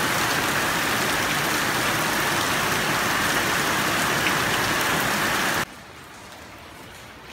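Heavy rain falling into rows of water-filled plastic buckets and basins, a dense steady hiss with the odd louder drop. About five and a half seconds in it cuts off suddenly to much fainter rain on a wet street.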